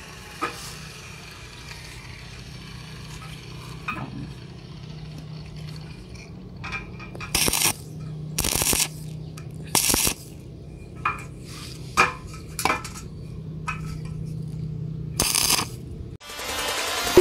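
Steel pieces of an A-frame roof truss clanking and ringing as they are moved and flipped, with four short bursts of arc-welding sizzle from tack welds, over a steady low hum. The hum cuts off near the end.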